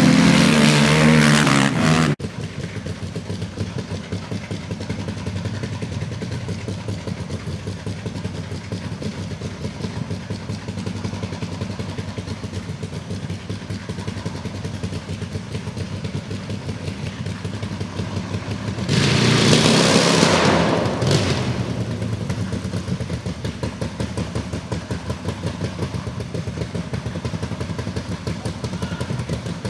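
ATV engines at full throttle for about two seconds, cut off suddenly. Then a dirt bike's engine idles with a fast, even beat, is revved hard for about two seconds around two-thirds of the way through, and drops back to idle.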